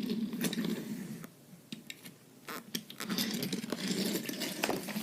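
Handling noise from a toy cruise ship model being moved about: scattered clicks, knocks and rustling, quieter for a second or so in the middle.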